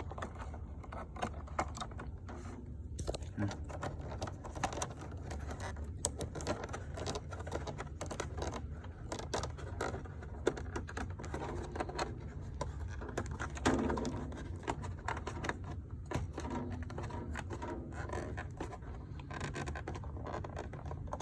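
Computer parts and cables being handled and fitted into a desktop computer case: scattered clicks, taps and scrapes over a steady low hum.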